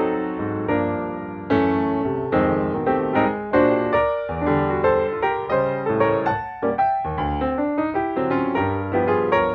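Background piano music: a gentle melody of struck notes over chords.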